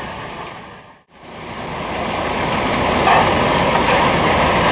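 Vortxrex dryland dredge running: a steady rushing noise of water and gravel being sucked through the nozzle and hose, with the engine beneath it. It fades out about a second in, then comes back and builds louder.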